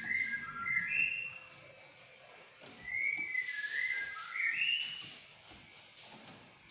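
Greater green leafbird (cucak ijo) singing: two phrases of clear whistled notes that jump between pitches, the first ending about a second in and the second starting near the three-second mark, with a short pause between them.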